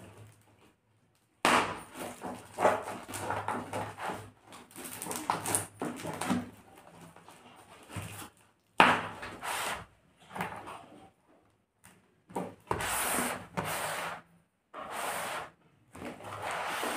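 Scissors cutting and scraping through layers of brown packing tape and plastic wrap on a cardboard parcel, in irregular bursts of cutting and rustling with short pauses between them.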